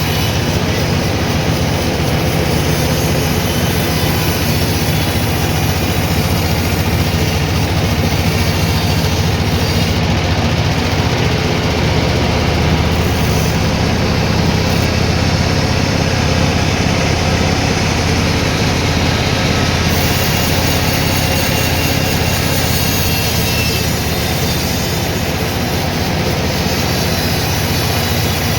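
Sawmill machinery running steadily, a loud, even mechanical noise with a low hum underneath that doesn't let up.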